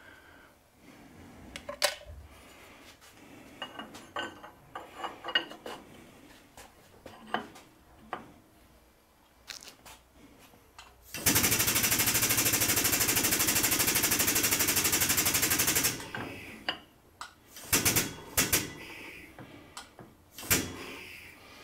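Hydraulic press's pump running for about five seconds in the middle with a rapid, even chatter as the press bends a metal part a few degrees further. Before and after it, scattered metal clinks and knocks as the part is handled and set in the press.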